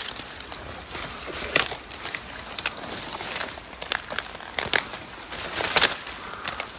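Dry bamboo and brush debris being crunched and snapped: irregular cracks and crackling at uneven intervals, the loudest snaps about a second and a half in and near the end.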